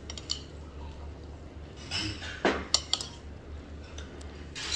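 Stainless steel chopsticks clinking against a ceramic bowl while picking up chicken, with a few sharp clinks about halfway through, over a steady low hum.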